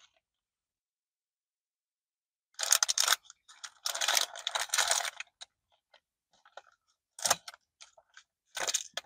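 Paper food sleeve rustling and crinkling as it is handled. There are two bursts of crackling a few seconds in, then a few short crackles near the end.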